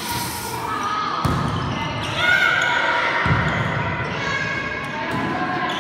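A volleyball bouncing on a sports-hall floor, with short high squeaks and voices in the background, all echoing in the hall.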